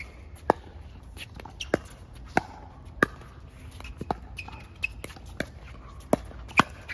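Pickleball paddles hitting a plastic ball during a doubles rally: a string of sharp pocks at irregular intervals, about half a second to a second apart.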